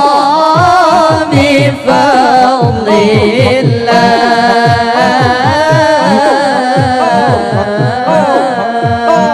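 Zikir saman devotional singing: a solo voice sings a long, ornamented line over held notes, with a steady beat of low percussion strokes about three to four a second.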